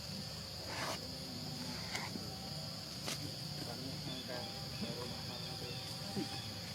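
Steady high-pitched drone of insects, with a few faint clicks, the plainest near one and three seconds in.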